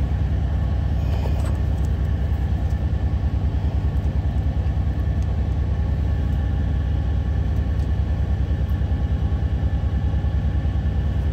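Semi truck's diesel engine idling, a steady low rumble with a fast, even pulse, heard from inside the sleeper cab.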